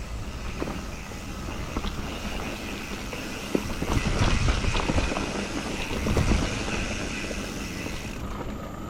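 Mountain bike riding along a dirt trail: steady tyre and wind noise with scattered knocks and rattles from the bike over bumps, louder for a couple of seconds in the middle.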